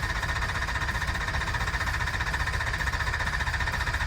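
Starter cranking a Ford 6.0 Power Stroke V8 diesel in an even, steady rhythm without it firing yet. The engine is being turned over to build injection control (high-pressure oil) pressure after a broken standpipe O-ring was replaced.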